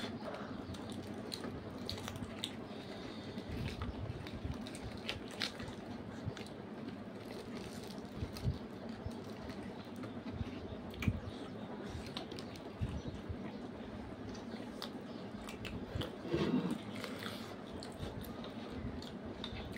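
Mouth-close eating sounds of two people chewing and biting fried puri with chicken curry, with scattered soft clicks and squishes as fingers tear the bread and pick food off the plate.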